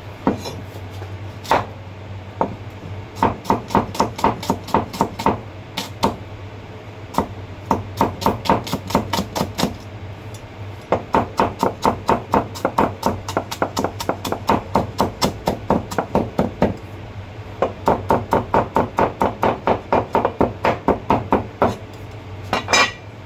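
Cleaver chopping garlic on a wooden chopping board: rapid, even knocks, about four a second, in several runs with short pauses between them.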